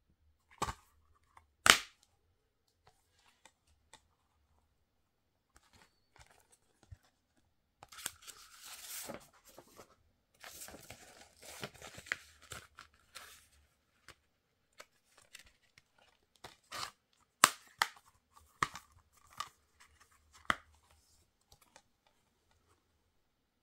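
Hands handling a plastic Blu-ray case: sharp plastic clicks and snaps, and from about eight to thirteen seconds in a stretch of tearing and crinkling of wrapping and the paper cover sheet. A run of clicks follows near the end as the case is opened.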